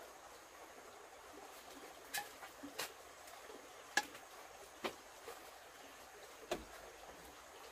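A handful of short, sharp clicks and knocks at irregular intervals, the loudest about four seconds in, over a faint steady hiss.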